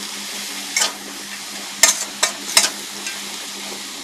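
Greens, bean sprouts and grated coconut being stir-fried in a wok: a steady sizzle, with four sharp scrapes of the stirring utensil against the pan as the mixture is tossed.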